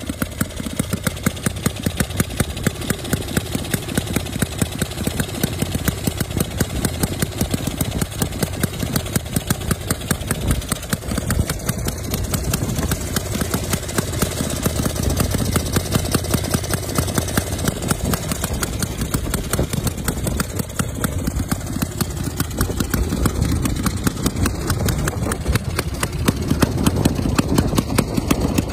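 A veteran single-cylinder air-cooled motorcycle engine idling, its exhaust beating in a quick, even pulse, a little louder near the end.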